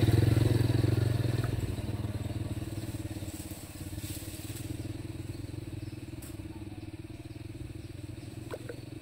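A small engine running with an even low pulse, loud at first and fading over the first three seconds or so, then continuing quietly.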